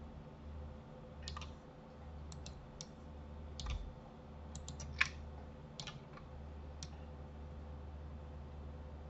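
Computer mouse and keyboard clicks: about a dozen short, irregular clicks, some in quick pairs and triples, with the sharpest one about five seconds in, over a faint steady low hum.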